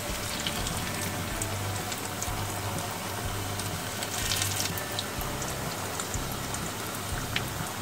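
Khaja pastries frying in hot oil in a steel kadhai on low heat: a steady, gentle sizzle of bubbling oil, with a few light clicks of forks against the pan.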